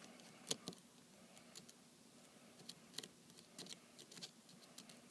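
Faint, irregular small clicks and ticks of a Phillips screwdriver and small tools working the tiny screws inside an iPad 2, about ten scattered taps with the loudest about half a second in.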